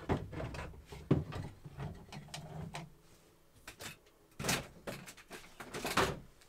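Knocks and scraping as a foot pump mounted on a wooden shelf bracket is pushed into a tight opening in a galley cabinet: sharp knocks at the start and about a second in, then two louder scrapes near the end.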